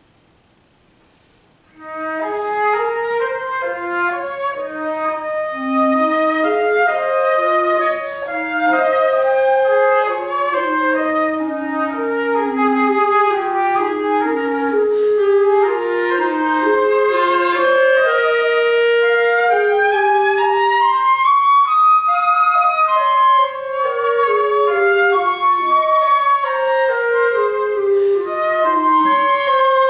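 Flute and clarinet duet from a woodwind quintet, entering together about two seconds in after near silence. The two lines weave around each other in a flowing melody.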